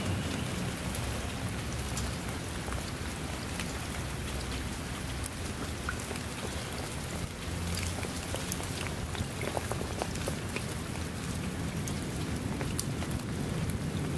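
Steady rain falling on wet ground and into a shallow puddle: an even hiss with many sharp, close drop ticks scattered through it.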